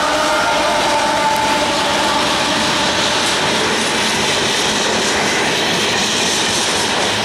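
Diesel freight locomotives and cars rolling past close by: a loud, steady running noise of engines and wheels on the rails. A whining tone in it fades out within the first two seconds as the locomotives move away.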